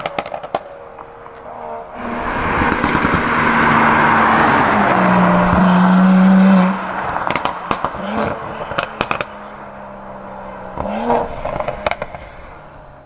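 Mercedes-AMG GT53's turbocharged 3.0-litre inline-six through a Fi valvetronic catback exhaust with its valves open, accelerating hard away. The loudest pull cuts off about seven seconds in and is followed by a string of sharp pops and crackles on the overrun. It then runs on lower, with a brief rev and more crackles near the end as it fades.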